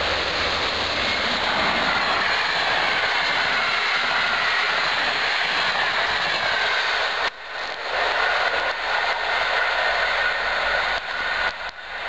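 PKP EP07 electric locomotive and its passenger coaches passing at speed: a loud, steady rush of wheels on rail and moving air, with a faint whine that falls slightly in pitch. The noise is broken by brief sudden dips in the second half as the coaches go by.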